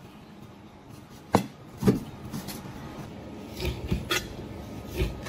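Chinese cleaver chopping raw pork belly into chunks on a plastic cutting board: separate knocks of the blade striking the board, the two loudest a little over a second in and about half a second apart, then several lighter chops.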